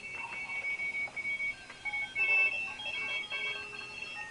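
Several Morse code (CW) stations heard at once through a vintage Ameco shortwave receiver, each a beeping tone at its own pitch keying on and off. A strong, higher-pitched station stands out loudest from about two seconds in.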